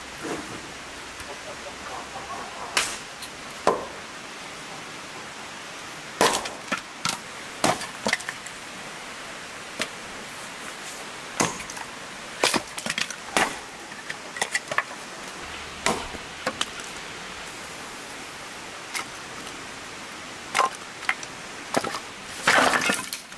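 Axe chopping and splitting firewood on a log: a series of sharp, irregularly spaced blows with the wood cracking and splintering. Shortly before the end comes a denser clatter of split sticks knocking together as they are gathered up.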